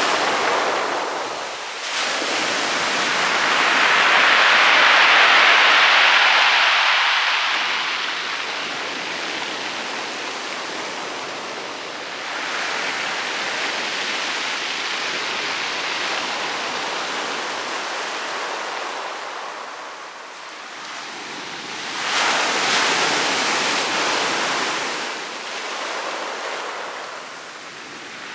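Rough sea waves breaking on a pebble beach and washing back over the stones, coming in slow surges: a big one a few seconds in, a longer, softer one around the middle, and a shorter one near the end.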